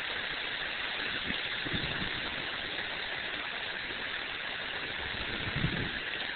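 Hurricane wind blowing as a steady hiss, with a few faint low buffets on the microphone.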